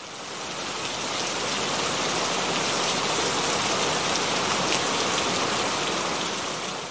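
Steady rushing of the Pamba river in flood, muddy water churning through rapids. It fades in over the first second and fades out near the end.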